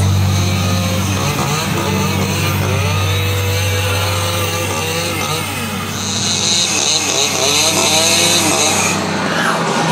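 Haunted-house din: a chainsaw engine revving and scare actors yelling, their pitches rising and falling, over a steady low hum from the effects soundtrack.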